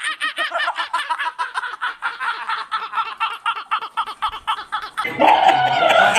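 Two young men laughing helplessly in a rapid run of short ha-ha bursts, several a second. About five seconds in, a louder, fuller voice cuts in.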